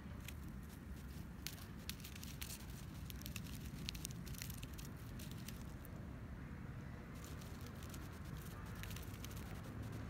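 Scattered sharp crackling clicks of dry grass and stems as a grounded bat crawls and spreads its wings, bunched in the first few seconds and again near the end, over a steady low rumble.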